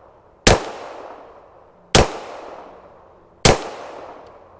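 Three slow, aimed shots from a CZ P09 Duty 9mm pistol, about a second and a half apart, each sharp crack trailing off in a fading echo.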